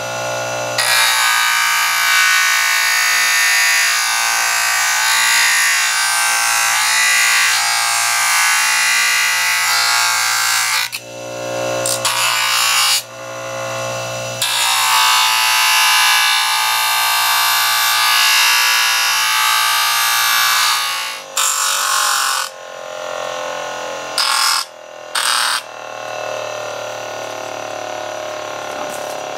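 DeWalt bench grinder running, with a flat piece of wood pressed against the spinning wheel to grind notches into it. There are two long grinding passes, then several short touches. The motor's steady hum comes through in the short gaps between them.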